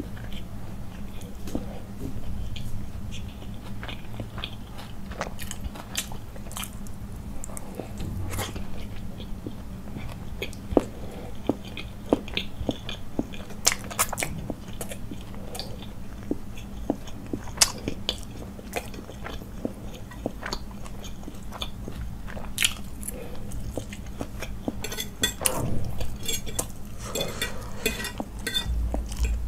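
Close-miked chewing and biting: wet mouth clicks and soft crunches scattered through. Near the end a quicker run of sharp clicks as a metal fork works against the plate, cutting into a boiled egg.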